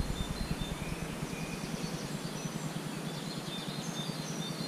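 Quiet outdoor ambience: a steady low hum and hiss with faint, short bird chirps scattered throughout.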